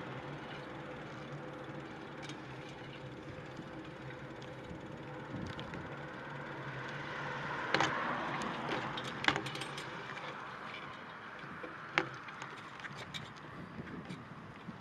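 Street traffic noise with a vehicle passing about halfway through, and a few sharp clicks or knocks.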